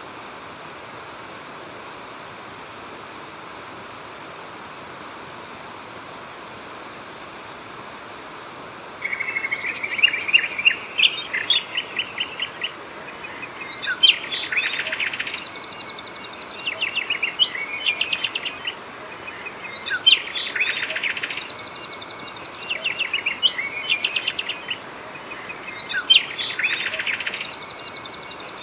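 Steady rush of water over a weir; about nine seconds in a songbird begins singing, repeating short phrases of rapid chirping notes roughly every three seconds over the water noise.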